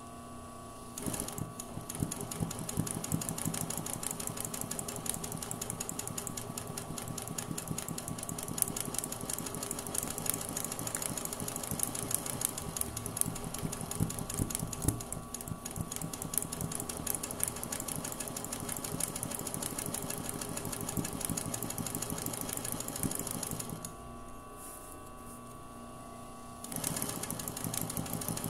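Sewing machine stitching free-motion embroidery, the needle running in rapid, even strokes. It starts about a second in, stops for about three seconds near the end, then starts again.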